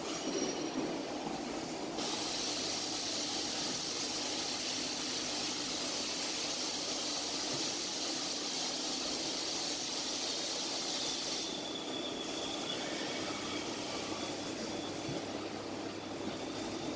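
CNC lathe turning a part under flood coolant: a steady hiss of coolant spray and cutting over a low machine hum. The hiss starts about two seconds in and drops away about eleven seconds in as the cut and coolant wind down.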